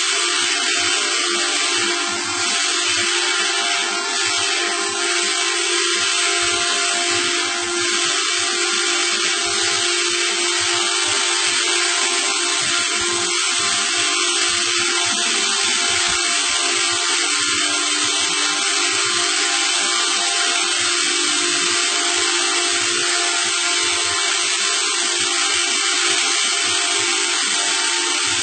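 A steady machine whir with a hiss and several constant tones that hold without change, and faint scattered low thumps underneath.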